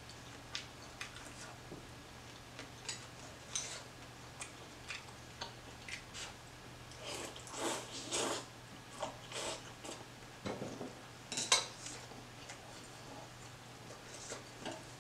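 Eating noodle soup: green chopsticks clicking and scraping against a stainless steel pan in many short, sharp ticks, with a run of noodle slurps about halfway through. The loudest clack comes about three quarters of the way in.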